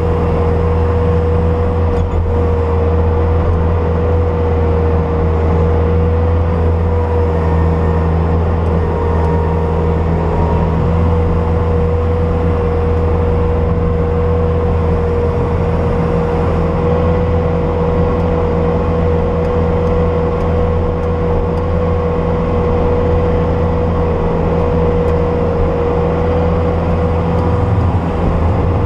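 Bobcat S250 skid steer's diesel engine running steadily under working load, with a steady whine over the engine note.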